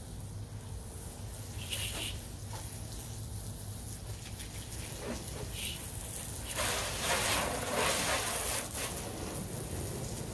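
Water sprayed from a garden hose splashing onto a car's bodywork: a hissing spatter, loudest for about two seconds past the middle, over a steady low hum.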